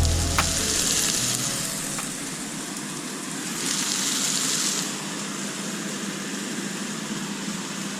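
Food sizzling in a hot frying pan, a steady hiss that swells louder for about a second midway.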